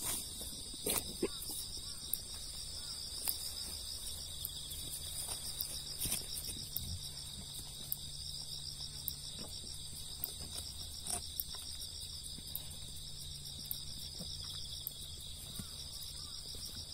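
Insects chirring steadily in high, pulsing bands, with scattered sharp clicks; a low hum comes in about four seconds in.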